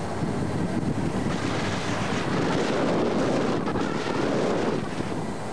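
Wind rushing over a camcorder microphone: a steady noisy rumble without any clear tone, swelling a little in the middle and easing near the end.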